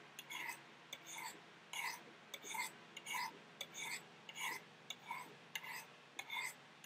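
A knife blade being stroked down the ceramic rods of a Spyderco Sharpmaker, about two strokes a second. Each stroke is a short, faint scrape with a light ringing note from the rod. The strokes use almost no pressure, putting a 40-degree micro-bevel on the edge.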